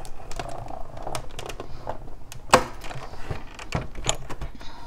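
Hand-cranked Stampin' Cut & Emboss die-cutting machine: the plate sandwich rolls through the rollers with irregular clicks and cracks as the steel leaf dies cut through the cardstock, with one loud crack about two and a half seconds in.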